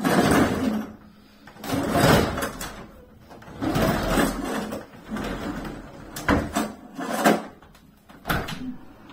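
A window and its mesh screen being handled: a run of scraping and rattling, then three sharp knocks about a second apart near the end.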